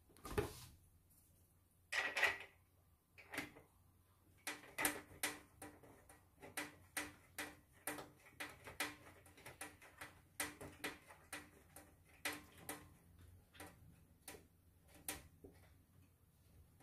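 Foldable aluminium laptop table's side mouse tray being handled: a scraping rattle, then a long series of light clicks and knocks, about two a second, each with a short metallic ring.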